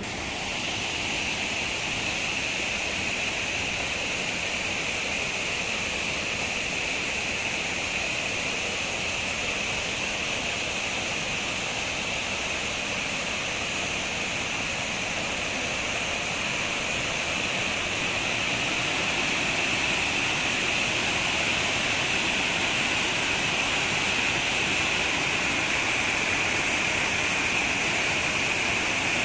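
A shallow river cascade, water rushing steadily over sloping rock slabs into a pool, growing a little louder past the middle.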